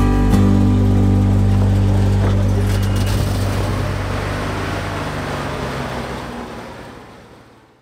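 1966 Chevrolet C20 pickup's engine running as the truck pulls away, its sound fading steadily as it gets farther off.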